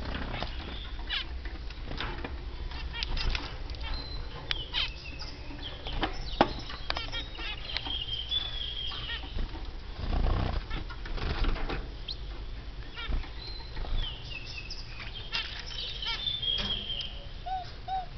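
Small cage birds (finches and canaries) fluttering their wings in the cages, with scattered clicks and knocks and short high chirps now and then.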